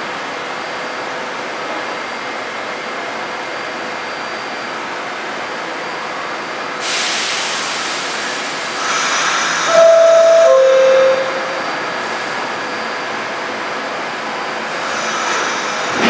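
R46 subway train standing at a station platform with its equipment running steadily. A burst of air hiss comes about 7 s in, then the two-tone descending door-closing chime sounds about 10 s in. Another hiss near the end comes as the train begins to pull out.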